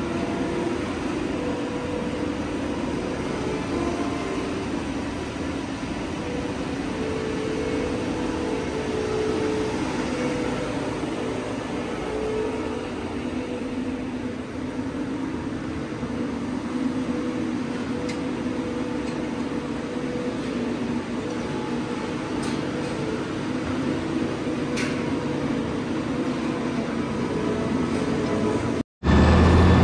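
Diesel engines of a wheel loader and tractor running steadily while the loader works, with wavering engine tones. The sound cuts out briefly near the end.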